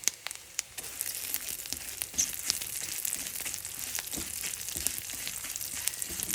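Fennel and carom seeds frying in hot ghee in a pan: a sizzle that swells about a second in, with frequent sharp crackles and pops.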